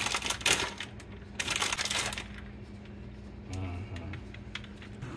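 Plastic bag of shredded Parmesan cheese rustling and crinkling in a few short spells, loudest in the first two seconds, as cheese is pinched out and sprinkled onto oysters on the half shell. A low steady hum sits underneath.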